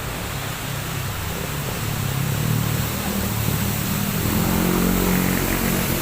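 A motor vehicle's engine running, its pitch stepping up about four seconds in, over a steady rushing noise.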